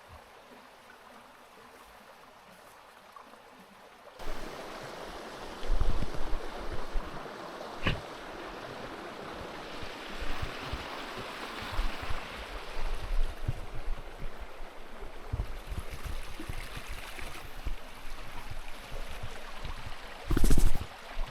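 River water rushing steadily, starting suddenly about four seconds in after a faint hiss, with irregular low thumps and a louder bump near the end.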